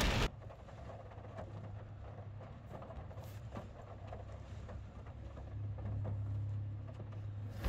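A low steady hum that swells near the end, with faint soft taps and presses as a hand pushes down on a rain-soaked car floor carpet.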